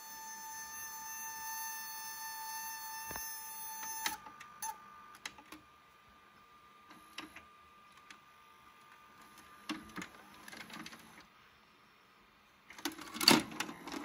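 VCR tape mechanism giving a steady high-pitched whine that stops with a click about four seconds in. Scattered faint clicks and whirs follow, then louder clunks near the end. The owner cannot account for this weird noise.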